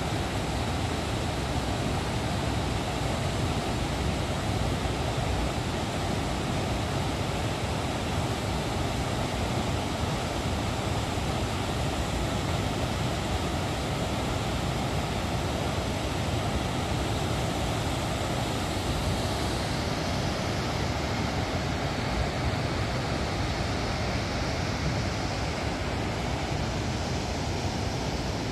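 Muddy floodwater rushing down a rocky gully and pouring over a cliff as a waterfall: a steady, dense rush of water with no pauses.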